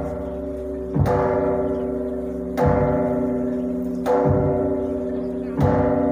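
A large ritual bell struck slowly and evenly, four strokes about a second and a half apart. Each stroke lands with a deep thud and rings on, fading, until the next.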